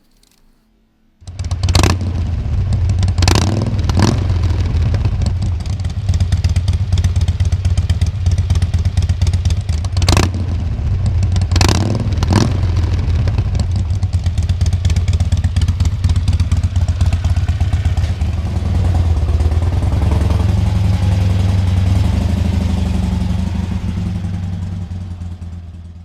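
2016 Harley-Davidson Forty-Eight's 1200 cc V-twin running through Rush 3-inch slip-on mufflers with 2-inch baffles: a loud, steady, low rumble. It cuts in suddenly about a second in, has several short sharp blasts in the first half, and fades near the end.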